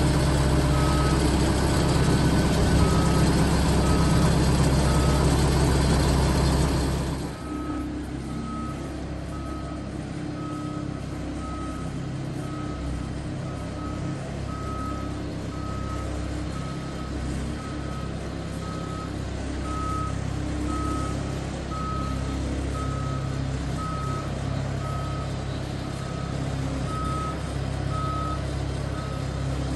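A reversing alarm beeps steadily, about once a second, over the running engine of the rig moving a boat on a hydraulic boat trailer. The engine is loud for the first seven seconds, then drops off suddenly and carries on more quietly under the beeping.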